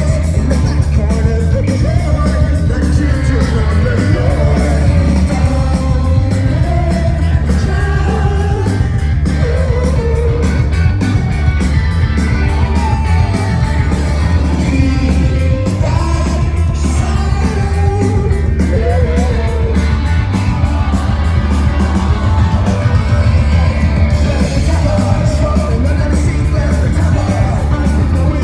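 Psychedelic rock band playing live, with sung vocals over heavy, loud bass and rapid, driving drums.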